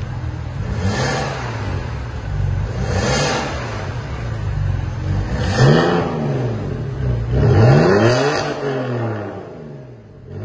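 BMW E60 525i straight-six blipped four times through an A Performance valved cat-back exhaust, each blip rising and falling in pitch. The first two blips are with the exhaust valves closed. The last two are louder, with the valves opened by remote, before the engine drops back to idle near the end.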